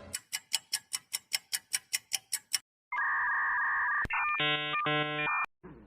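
Game sound effects: a clock ticking quickly, about five ticks a second for some two and a half seconds, then a steady two-tone buzzer for about a second, a click, and a short electronic tune of changing notes.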